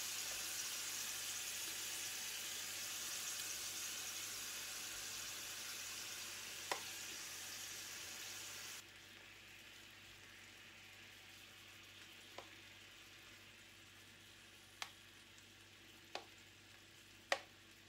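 Marinated beef strips sizzling as they fry in hot oil in a frying pan. The sizzle drops suddenly to a much softer level about nine seconds in, and a handful of sharp clicks from plastic tongs against the pan and bowl come through.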